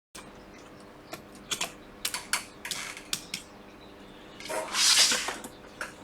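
Hands handling small parts and tools on a workbench: scattered light clicks and taps, then a louder rustling scrape lasting about a second, starting some four and a half seconds in.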